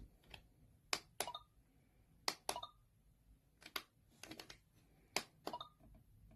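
Plastic buttons on a Lexibook Minnie toy alarm clock clicking as they are pressed and released, in quick pairs about five times.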